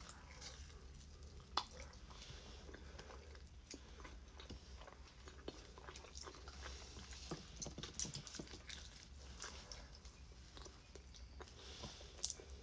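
A person biting into and chewing a slice of pizza, with faint wet mouth clicks and smacks throughout; a sharper click about a second and a half in and again near the end.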